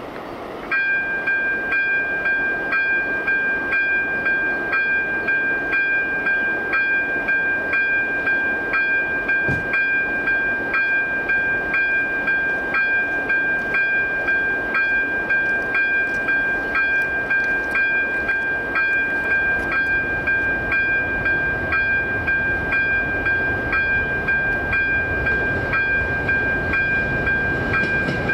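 ZV02 electronic level-crossing bell switching on about a second in and sounding a steady, shrill tone with an even repeating beat: the crossing warning is active for an approaching train.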